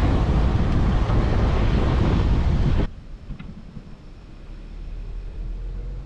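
Loud, steady rush of wind and air noise on a flying drone's camera microphone. It cuts off abruptly about three seconds in, leaving a much quieter low rumble.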